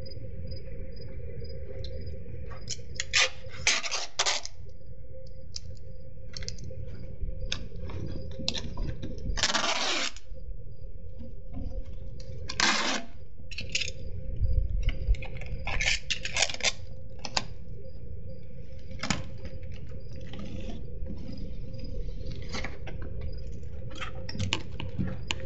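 House-wrap seam tape being pulled off its roll in short rasping strips, three of them louder, the longest lasting most of a second. Between the pulls come scattered light clicks and crinkles as the tape is pressed onto the wrap and metal flashing, over a steady low hum.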